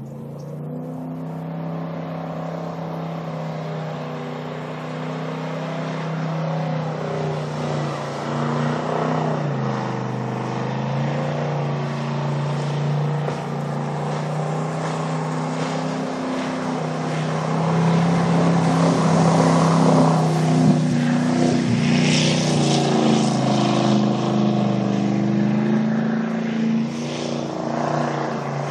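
1971 Sidewinder jet boat's 455 big-block V8 running hard across the water. Its steady engine note drops and climbs again as the throttle changes, and it is loudest about two-thirds of the way through.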